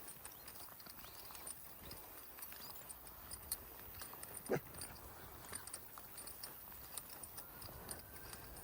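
Quiet footsteps of a dog walk, with scattered small clicks and taps from the dogs and their leads.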